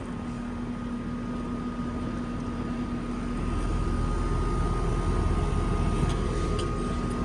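Carrier Weathermaker air-conditioner condensing unit running: a steady hum with a faint higher whine over a low drone, the low part growing louder about halfway through. It is quiet-running, its compressor wrapped in a sound blanket.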